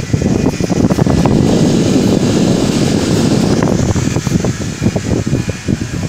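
Homemade table fan driven by a 775 DC motor running at full speed, its strong blast of air rumbling and fluttering against the microphone. The noise is loudest about a second in through five seconds and eases a little near the end.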